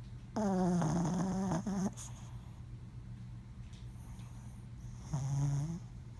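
A sleeping pet making dream noises: a drawn-out low call falling slightly in pitch, lasting over a second, a short one right after, and another brief, lower call near the end.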